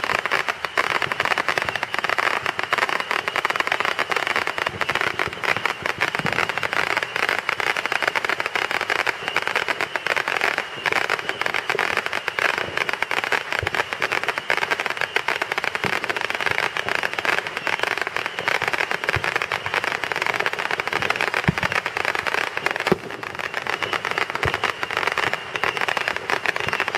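Consumer fireworks going off in a dense, unbroken barrage of rapid crackling pops, taken for the grand finale, with a few heavier bangs standing out near the end.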